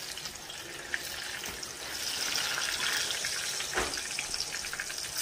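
Cooking oil sizzling in a frying pan as plantain slices wet from adobo water fry a second time for tostones; the sizzle grows louder about two seconds in.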